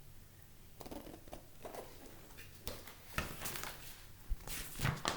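A picture book's paper pages rustling and scraping as a page is turned: a run of short, irregular rustles and taps that starts about a second in and grows busier.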